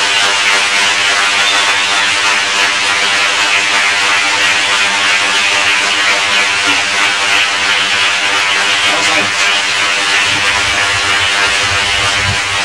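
Audience applauding, a long steady round of applause for the performer.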